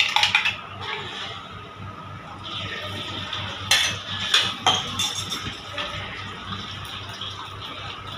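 Beaten egg frying in hot oil in an iron wok, sizzling loudly just as it goes in. A metal ladle clinks and scrapes against the wok several times about four to five seconds in.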